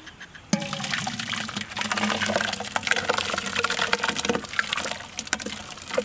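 Thick blended tomato gravy pouring from a mixer-grinder jar into a large cooking pot, with many wet splats and slops. It starts suddenly about half a second in.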